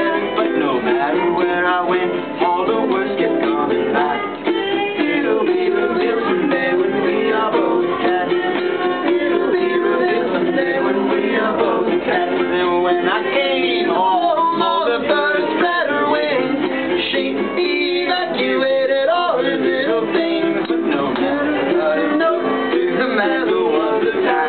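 Ukulele strummed and picked steadily in an instrumental passage of a live acoustic song.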